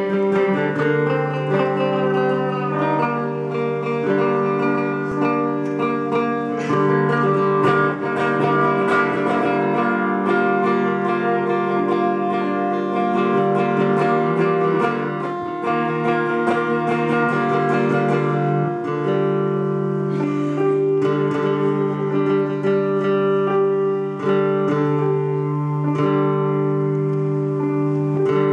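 Live instrumental music: a plucked string instrument plays over held low notes, with no singing.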